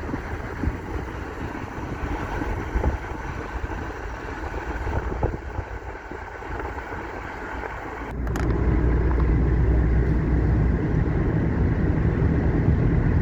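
Car driving, heard from inside the cabin: a steady low engine and tyre rumble. About eight seconds in there is a knock, then the road noise gets louder and stays louder.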